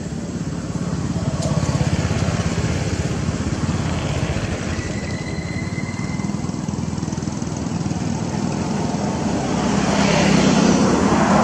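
An engine running steadily nearby, a low rumble with a fast even pulse, growing louder near the end.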